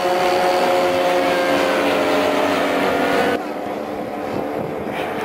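Engines of radio-controlled model biplanes running in flight overhead: a steady engine note that sags slightly in pitch, then falls away sharply about three and a half seconds in.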